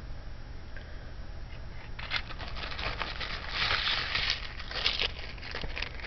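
Packaging crinkling and rustling as carded earrings are handled. It starts about two seconds in, with many small crackles, and is loudest around the middle.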